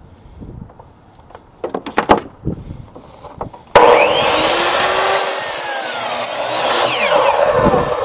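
Corded Ryobi compound miter saw, running on household mains power, starts abruptly about four seconds in. Its blade spins up with a rising whine and cuts through a 2x4 at full speed, then the motor runs down near the end. A few handling clicks come before the start.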